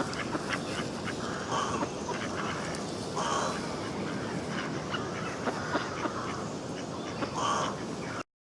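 Ducks quacking, a short call about every two seconds over a steady background hiss; the sound cuts off abruptly near the end.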